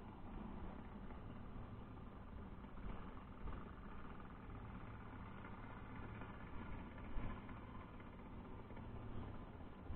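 Muffled underwater noise picked up through a waterproof camera housing: a steady low hum with a hiss of water, and one faint knock about seven seconds in.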